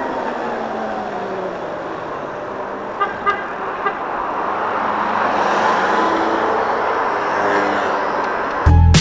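Wind and road noise while riding a Gogoro 2 Plus electric scooter in traffic, with a motor whine that slides down in pitch over the first couple of seconds. A few short beeps come about three to four seconds in. Music starts just before the end.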